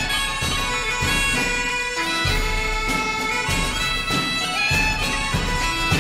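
Background music of bagpipes playing a tune over a steady drum beat.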